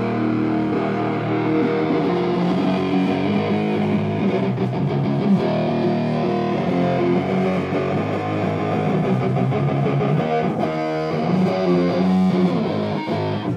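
Live rock band playing loud, with a distorted Stratocaster-style electric guitar over bass guitar and drums. The music stops abruptly at the end.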